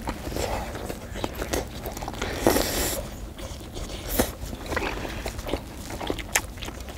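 Mukbang eating sounds: people blowing on hot fish-cake skewers, biting and chewing them, with mouth smacks and a breathy blow about two and a half seconds in.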